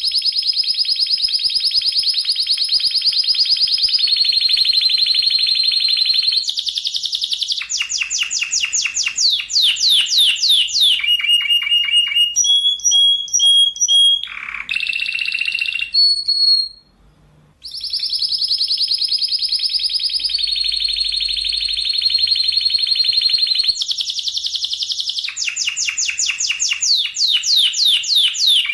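Spanish Timbrado canary singing: long, fast rolling trills and runs of rapid falling notes, high-pitched and loud. The song breaks off briefly about two-thirds of the way through, then starts again with the same kind of rolling trills.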